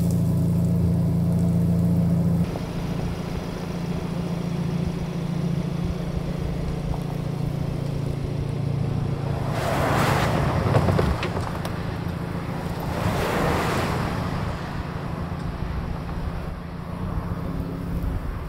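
Pickup truck engine running steadily with a low hum, then, after a sudden change, a lower engine rumble under road noise as two vehicles drive past, about ten and thirteen seconds in.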